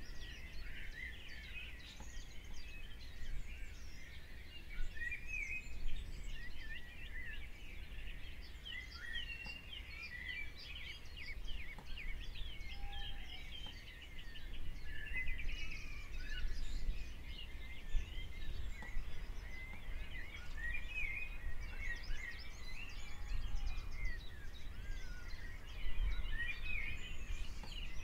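Many small birds chirping and twittering without a break, a busy chorus of quick calls, over a low background rumble.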